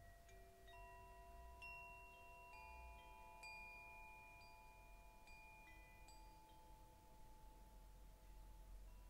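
Faint, slow chime-like music: soft struck bell notes at several pitches, one about every second, each ringing on for several seconds so that they overlap.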